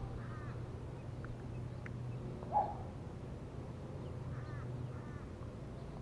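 A bird calling in short groups of repeated notes, once at the start and again about four and a half seconds in, over a steady low background hum, with one brief louder sound about two and a half seconds in.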